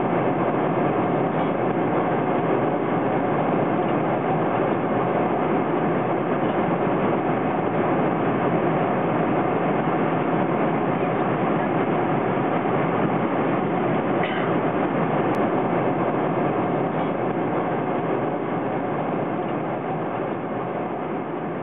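Airliner cabin noise in flight: a steady, even rush that eases off gradually near the end.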